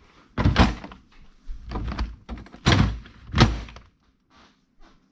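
Refrigerator ice maker being pushed and knocked into its housing: a series of plastic thunks and knocks, the loudest about three and a half seconds in, then a few faint clicks.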